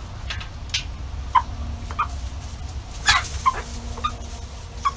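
Chickens giving short clucks and chirps, about nine scattered calls, over a steady low rumble.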